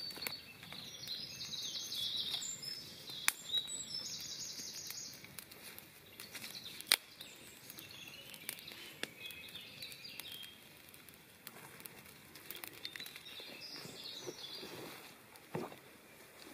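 Small campfire of dry twigs crackling, with scattered sharp pops, the loudest about seven seconds in. High chirping calls come and go in the background.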